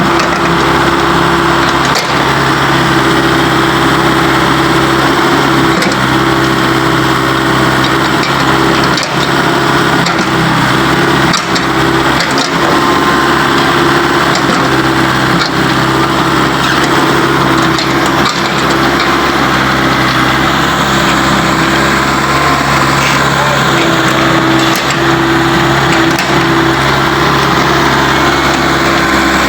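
A heavy machine's engine running steadily at an even pitch, with a few faint knocks over it.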